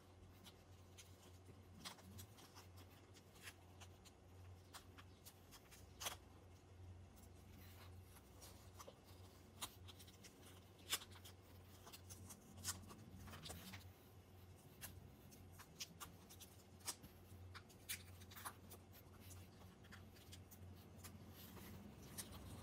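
Masking tape being peeled and crumpled off a small painted model car body by gloved hands: faint, irregular crinkles and ticks over a low steady hum.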